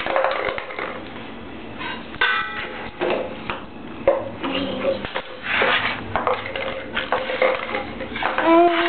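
A stainless steel colander, a metal spoon and a plastic container being knocked and clattered on a tile floor in a series of irregular knocks. A baby's short rising squeal comes near the end.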